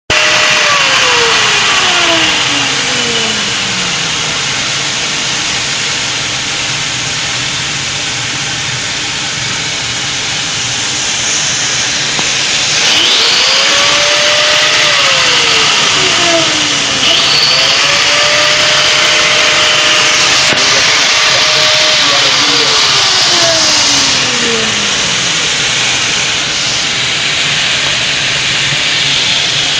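Metalworking noise with a power tool, typical of an angle grinder, spinning up quickly several times, running at a steady pitch, then winding down over a few seconds, over a steady loud roar.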